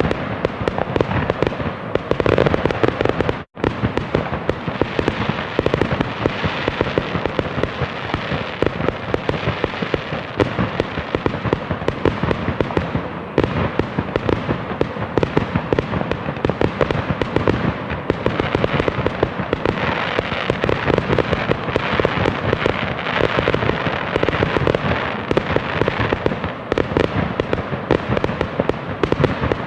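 Fireworks display: a continuous mass of overlapping bangs and crackling, briefly cutting out about three and a half seconds in.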